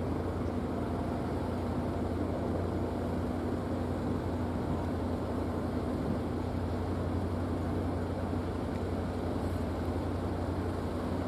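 Steady low drone of an idling engine, with an unchanging hum and no sudden events.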